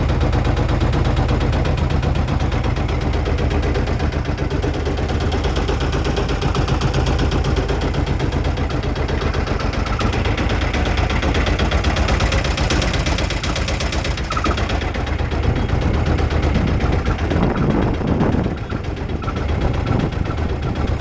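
Small motorboat's engine running steadily with a fast, even chugging beat, dipping briefly near the end.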